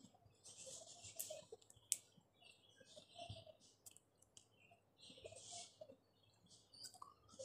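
Fingers peeling the thin skin off a boiled jackfruit seed: faint, irregular crackling with a few sharp clicks.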